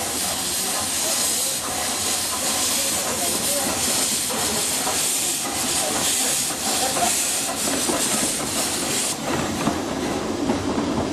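Kerr Stuart 0-6-4 saddle tank steam locomotive pulling away with its cylinder drain cocks open, a loud steady hiss of escaping steam. The hiss cuts off suddenly about nine seconds in as the cocks are closed, leaving the lower rumble of the train rolling.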